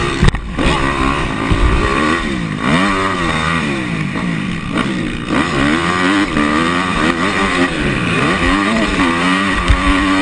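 Motocross dirt bike engine heard close from the rider's on-board camera, revving up and down over and over as the rider opens and closes the throttle around the track.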